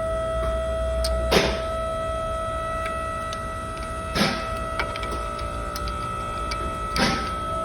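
Rear electric parking-brake caliper motor on a 2013 Mercedes ML 350, run straight from a booster pack through a wire, whining steadily as it drives the caliper to release the brake. Three short noisy bursts, about three seconds apart, break over the whine.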